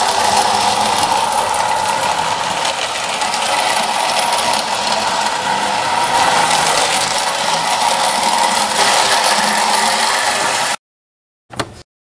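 Marx Monon diesel tinplate toy locomotive running on three-rail tin track: a loud, steady mechanical rattle of its motor, gears and wheels on the tinplate. It cuts off suddenly near the end, followed by one short blip.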